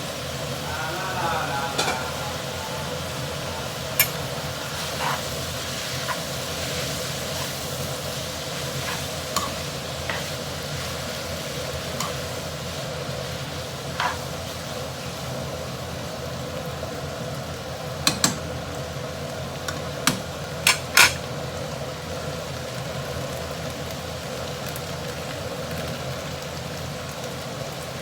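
Udon frying and sizzling in a pan while being stir-fried, with a utensil knocking and clanking against the pan now and then, loudest in a quick cluster of strikes about 18 to 21 seconds in, over a steady hum.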